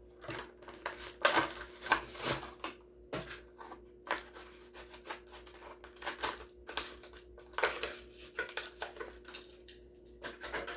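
Plastic blister and cardboard of a die-cast toy car package being torn open by hand: irregular crackling, snapping and clicking, over a faint steady hum.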